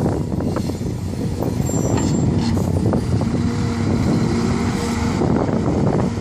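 Heavy diesel engines running: a Mercedes-Benz Actros dump truck manoeuvring close by, over the drone of CAT 345 excavators loading rock. A brief hiss of air, like an air brake, about two seconds in.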